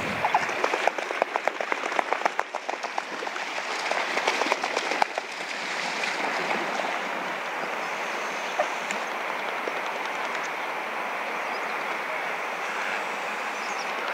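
Waterbirds splashing and beating their wings on the water, a quick run of slaps and splashes for about five seconds, then a steady rush of water.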